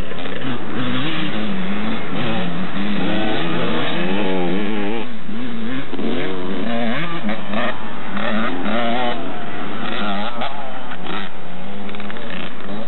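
Kawasaki KX125 dirt bike single-cylinder two-stroke engine revving, its pitch rising and falling over and over as the throttle is worked.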